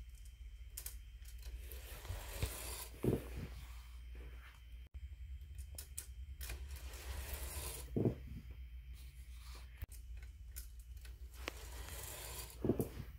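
Glass marbles rolling and clicking along a plastic toy marble run, with a few louder knocks.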